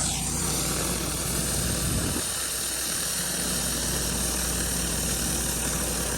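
Pressure washer engine running steadily under the hiss of high-pressure water spraying through a surface cleaner on concrete; the low engine hum briefly drops away for about a second a couple of seconds in.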